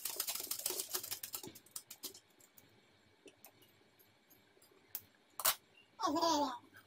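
Ordinary sewing machine stitching at speed, a fast even run of needle strokes that slows and stops about a second and a half in. After it come a few scattered clicks and a sharper click about five and a half seconds in. Near the end there is a brief wavering pitched sound.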